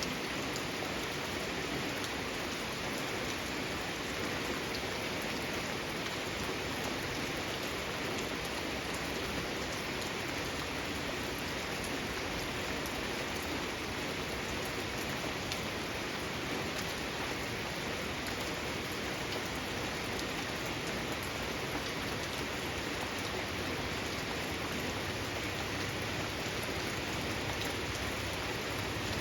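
Steady rain falling, a constant hiss with individual drops striking throughout.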